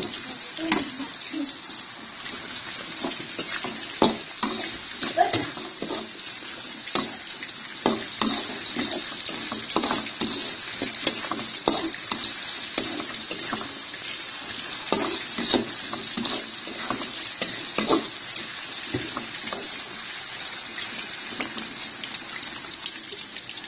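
Vegetables sizzling as they fry in a steel wok, with irregular knocks and scrapes of a spatula against the pan.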